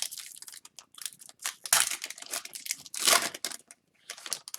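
Plastic wrapping on a hockey card hobby box and its packs being torn open and crinkled by hand: irregular crackling and ripping, with the loudest rips about two and three seconds in.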